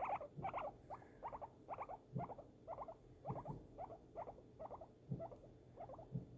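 A guinea pig making short squeaky calls over and over, about three a second, with a few faint low thuds underneath.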